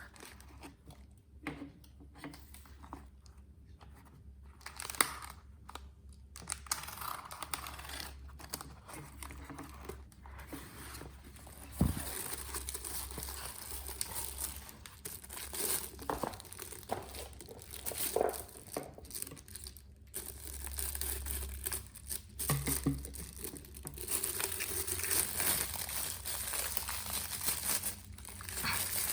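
Packaging crinkling, rustling and tearing as a motorcycle speedometer is unboxed by hand, with a few sharp knocks, the sharpest about twelve seconds in.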